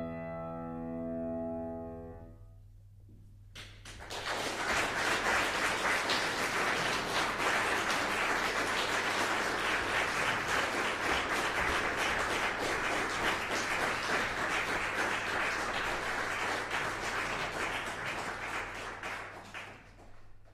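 The final chord of a grand piano ringing and dying away, then audience applause that starts about three seconds later, holds steady and fades out near the end.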